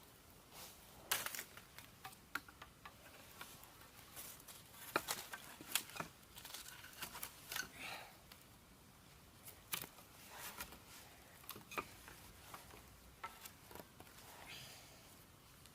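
Scattered light taps, clicks and rustles at irregular intervals, with a few sharper knocks: small objects being handled.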